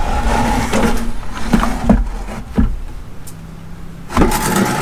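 Used engine oil splashing into a plastic five-gallon bucket as it pours from a truck's sump drain, with several sharp knocks as the buckets are handled and swapped under the stream in the first few seconds. The splashing grows louder about four seconds in.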